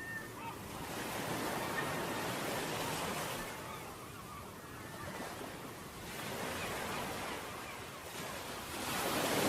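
Surf washing onto a beach with wind, the rush of the waves swelling and ebbing in slow surges every few seconds.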